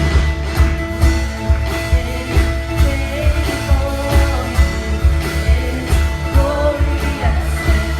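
Live church worship band playing a song's lead-in: guitar and bass over a steady beat of about two hits a second, with a melodic line coming in over it.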